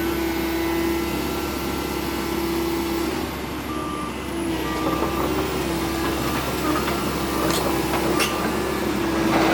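Mini excavator's diesel engine and hydraulics working under load with a steady drone as the machine drives out of sticky mud, with a short repeated beep from about halfway through and a few knocks near the end.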